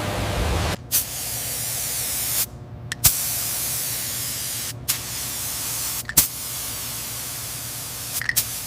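Hissing high-pressure spray, the kind used to blast-clean composite parts, in about four long stretches broken by short gaps. Each stretch starts with a sharp click. A lower rushing noise fills the first second.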